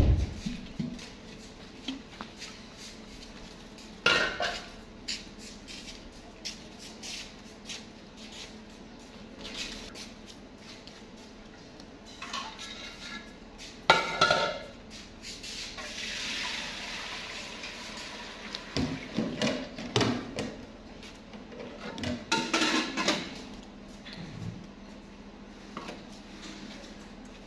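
Steel cooking pot, lid and bucket clanking and clattering as they are handled, in scattered bursts of knocks, loudest about four seconds in, at about fourteen seconds, and again between about nineteen and twenty-three seconds.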